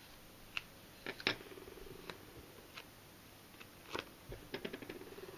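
Faint, scattered crinkles and light ticks from a vinyl sticker and its paper backing being handled, a few sharper ones about a second in and again about four seconds in.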